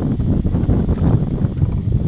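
Water splashing and churning as a hooked shark thrashes at the surface beside the boat, mixed with wind buffeting the microphone.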